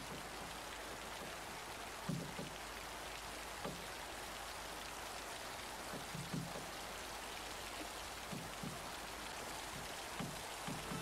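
Steady rain, an even hiss, with soft low drips or taps scattered through it.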